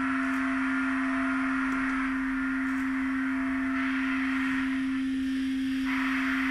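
Improvised electroacoustic music: a steady, pure electronic tone at a low-mid pitch, with a band of hiss above it that thins briefly a little past halfway.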